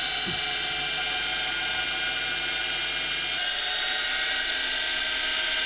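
Washing-machine universal motors running off a 12-volt battery: a steady, high brushed-motor whine. The mix of tones shifts slightly about three and a half seconds in.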